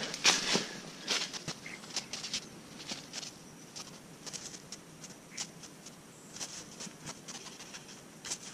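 Dry leaf litter crunching and rustling under footsteps, most dense in the first few seconds, then sparser rustles and crackles as the hammock and its gear are handled.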